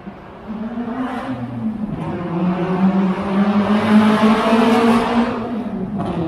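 Exhaust of a Toyota Vios's 2ZZ-GE four-cylinder engine, fitted with a Thai-copy N1 muffler, revving and held high. It grows louder to a peak about four seconds in, then eases off.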